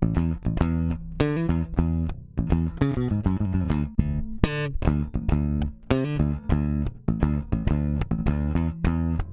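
Solo bass guitar playing a busy line of separately plucked notes, heard through a dbx 560A hardware compressor.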